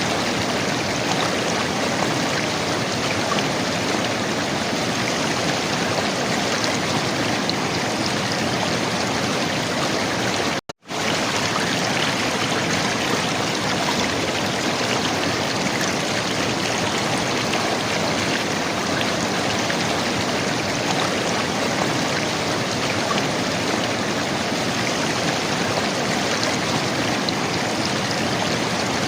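River water gurgling and rushing in a steady, even flow, broken once by a momentary dropout to silence about a third of the way in.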